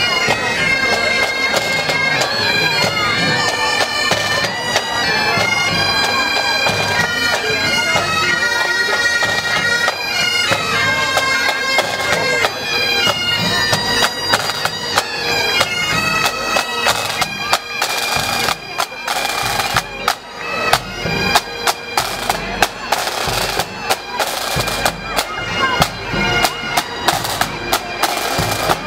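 Pipe band playing on the march: Highland bagpipes sounding a tune over their steady drone, with snare and bass drums. The drum strokes come through sharply from about halfway on.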